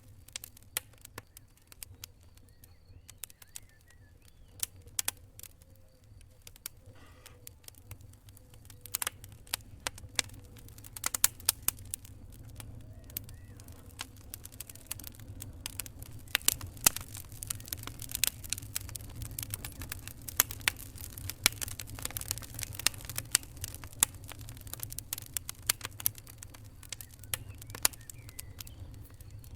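Wood fire crackling: irregular sharp snaps and pops over a low, steady rumble of burning, with the pops coming thicker and louder in the second half.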